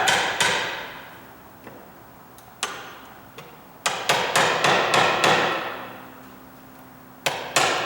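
Hammer striking a half-inch wood chisel, each blow ringing out, as wood is chiselled out of a door jamb for a deadbolt's bolt hole. The blows come singly at first, then four or five in quick succession about halfway through, then two more near the end.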